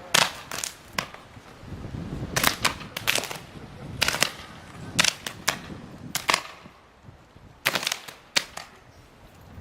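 Electrical arcing from uninsulated overhead power lines slapping together in the wind: sharp, gunshot-like cracks, often two or three in quick succession, repeating irregularly every second or so.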